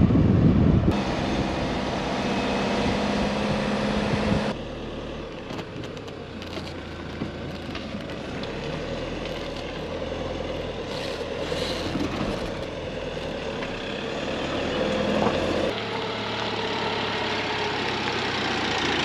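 Motorhome engine and road noise heard from inside the cab while driving, a steady running drone that changes abruptly a few times as short clips are cut together.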